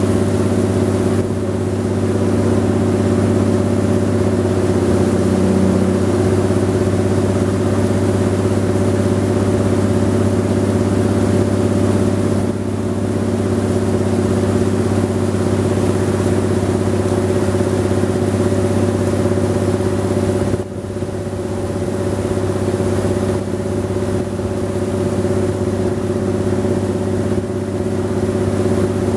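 A wooden river tour boat's engine running steadily under way: a loud, even drone with a steady hum, dipping briefly about two-thirds of the way through.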